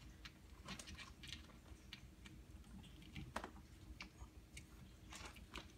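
Faint, scattered small clicks and ticks as a torque screwdriver turns the set screw of an ALUMICONN connector on an aluminum wire, short of its set torque.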